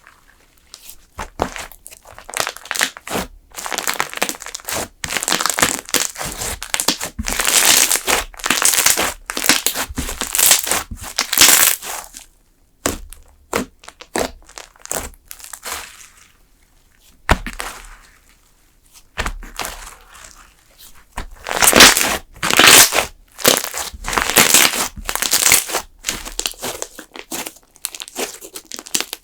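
Thick slime being handled, squeezed and pressed: irregular bursts of crackling, with a few short pauses.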